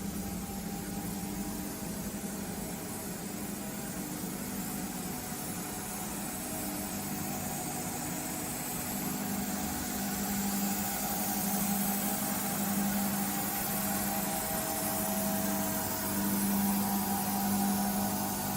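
Nomura NN-32YB2 Swiss-type CNC lathe running, a steady machine hum with a few held tones over a hiss, growing a little louder about halfway through.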